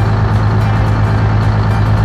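Excavator engine running steadily, a constant low hum, with background music over it.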